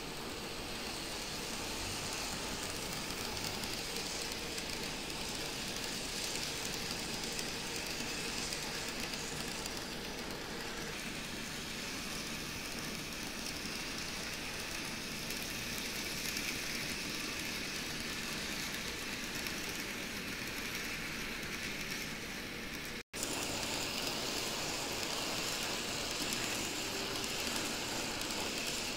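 N-gauge model freight train, hauled by a C62 steam locomotive model, running steadily on sectional track: a continuous whirr of the small wheels and the model's motor. The sound drops out for an instant about 23 seconds in.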